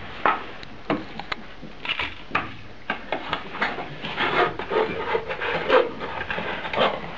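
Hand-held can opener cutting around the lid of a metal tin can: a series of short, irregular metal crunches and scrapes, coming closer together and more rasping in the second half.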